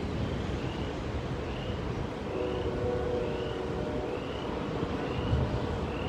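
Steady low rumble of outdoor or vehicle noise, with a faint high rising chirp repeating a little under once a second and a faint steady hum joining a couple of seconds in.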